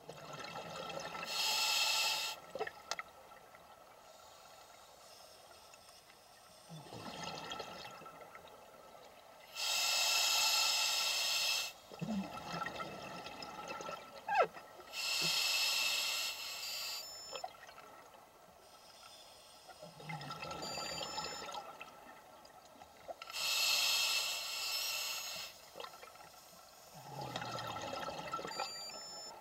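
A scuba diver breathing underwater through a regulator: a quieter hiss on each inhale, then a loud bubbling of exhaled air streaming from the exhaust. There are four breaths, about seven seconds apart.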